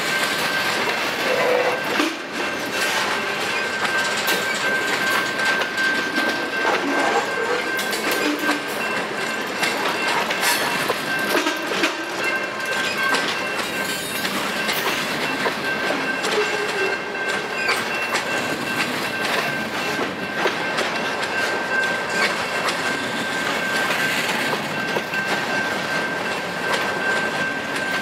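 Freight train of covered hopper and tank cars rolling past close by, its wheels clacking irregularly over the rail joints, with a thin steady high squeal running along under the clatter.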